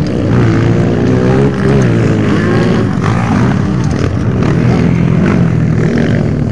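Dirt bike engines running and revving as motocross bikes ride past on the track, the pitch rising and falling with the throttle.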